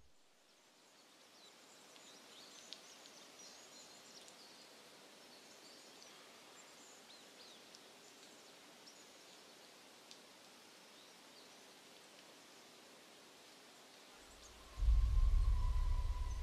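Faint forest ambience with scattered short, high chirps. About fifteen seconds in, a loud, low music drone with a steady higher tone sets in suddenly and becomes the loudest sound.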